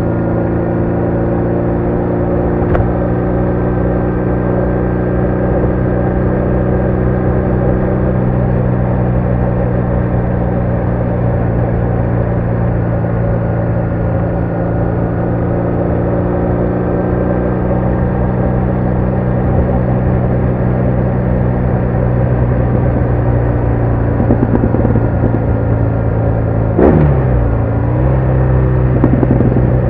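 BMW R1200R's boxer-twin engine running at steady revs on the move. Near the end the pitch drops sharply and then settles again.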